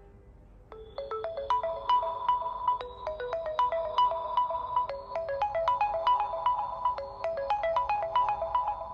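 realme C11 phone ringtone playing: a bright melody of quick, short, struck notes, starting about a second in and stopping near the end.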